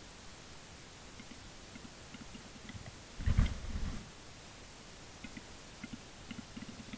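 Male capercaillie (western capercaillie) beating its wings in one brief, loud flurry about three seconds in. Faint scattered ticks come before and after it.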